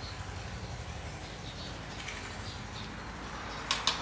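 Two quick metal clinks near the end as a ladle is set down in a steel wok of curry, over a steady low hum.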